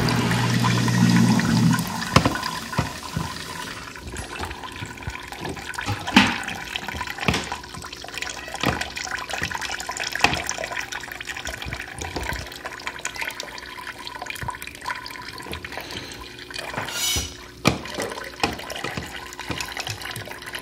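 Freshly pressed pear juice running and dripping from a bottle-jack fruit press into its collecting tray: a steady trickle broken by irregular drips and splashes. A louder low hum sounds through the first two seconds.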